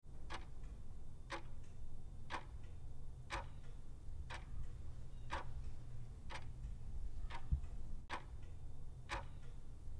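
Ticking-clock countdown sound, one sharp tick about every second, over a low steady hum.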